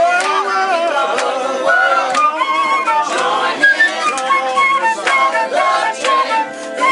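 Live music: a concert flute playing short held notes over several people singing together.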